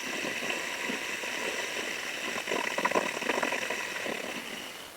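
Ujjayi pranayama inhalation: a long breath drawn in through a contracted throat, making a steady, rough hiss with a light snoring quality, like ocean waves. It fades out near the end.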